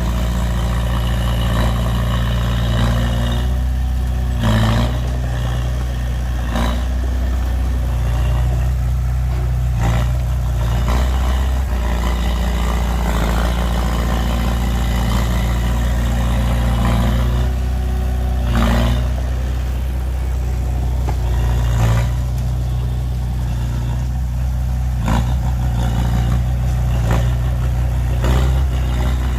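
Heavy diesel engine running steadily with a deep low hum, broken by a few short sharp knocks spread over the stretch.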